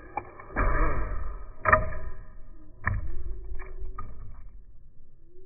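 Tinyhawk II Race micro FPV drone's brushless 7500kv motors whirring with a dropping pitch as it comes in. It hits the wooden deck with a sharp knock, knocks again about a second later, and gives a couple of lighter clatters as it tumbles to rest.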